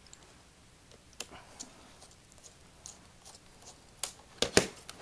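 Small Phillips screwdriver working the tiny screws out of a laptop screen's mounting frame: faint scattered ticks and scrapes, then a few sharp clicks near the end.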